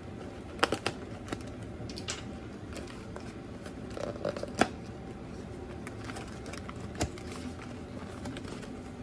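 A paperboard snack box being slit open with a knife and pried apart: sharp snaps and taps as the glued flaps give and the cardboard is handled, with light rustling between them. A steady low hum runs underneath.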